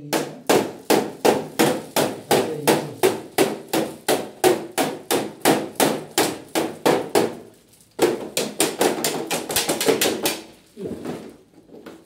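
Rapid, regular knocking on the plastic casing of a split air conditioner's indoor unit, about three knocks a second. After a brief pause about seven and a half seconds in, a faster run of knocks follows and dies away shortly before the end.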